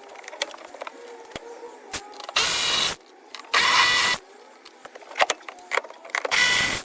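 A small power tool motor, like a cordless driver, whirring in three short bursts of about half a second each, backing out fasteners from car interior trim. Light clicks and rattles of parts being handled come between the bursts.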